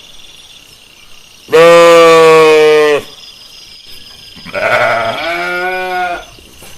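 Sheep bleating: two long calls, the first loud, the second quieter and starting about a second after the first ends.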